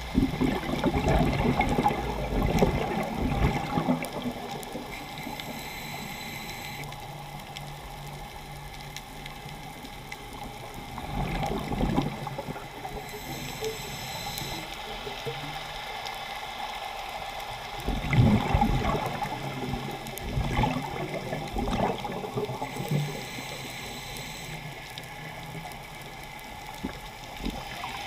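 Underwater recording of a scuba diver's exhaled bubbles gurgling past the camera housing. They come in bursts: a long one at the start, a shorter one about twelve seconds in, and another from about eighteen to twenty-two seconds. Between the bursts there is a steady, muffled underwater background.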